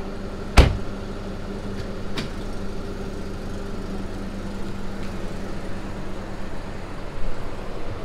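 Mercedes W204 C-Class driver's door shutting with one sharp thud about half a second in, followed by a lighter knock, over the steady hum of the car idling.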